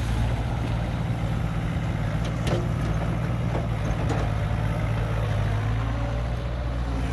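Sumitomo S160 excavator's diesel engine running steadily as it digs a muddy ditch with its narrow ditching bucket. A couple of brief clicks come about two and a half and four seconds in.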